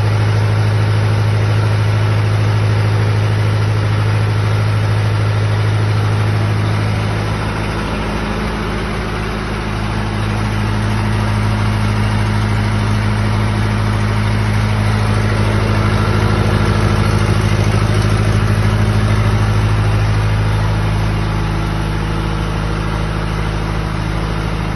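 Diesel engine of a 40 kVA generator set running at a steady speed with a constant low hum. Its loudness dips briefly about eight seconds in, then comes back.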